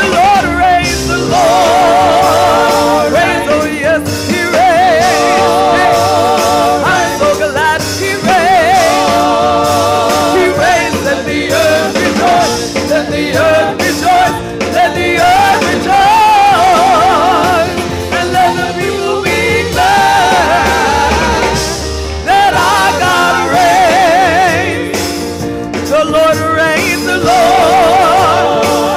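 A woman singing a gospel worship song into a microphone, with wide vibrato on her held notes, accompanied by sustained chords on a Roland Juno-DS electronic keyboard.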